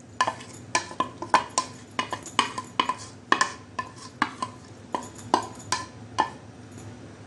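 Spatula scraping and knocking against the rim of a bowl as marinated minced meat is scraped out into a pan. It makes about three sharp knocks a second, each with a short ring.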